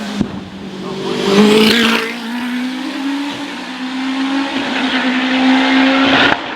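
Hillclimb racing car's engine running hard at high revs as the car goes past on the climb, loudest about a second and a half in. The engine note holds fairly steady, then cuts off abruptly near the end.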